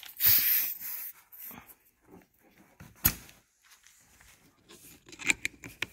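Compressed air hissing briefly as an air hose's quick coupler is pushed onto a pneumatic finger sander. A single sharp click follows about three seconds in, and a few small knocks come near the end.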